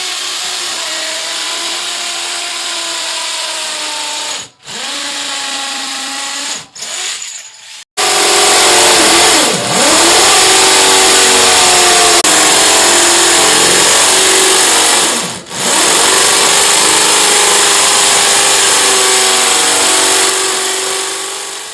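Handheld electric power tool running loud at high speed, its motor pitch dipping and recovering as it works under load. It cuts out briefly a few times in the first eight seconds and once more about two-thirds of the way through.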